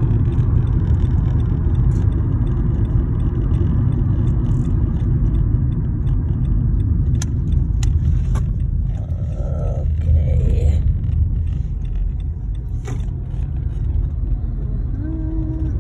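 Steady low road and engine rumble heard inside a moving car's cabin, with a few light clicks.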